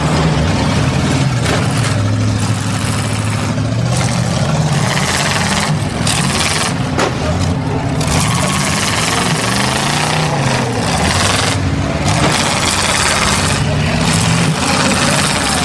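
Demolition derby cars' engines revving up and down as they ram each other, with a few knocks of car bodies colliding over a steady roar of engine and crowd noise.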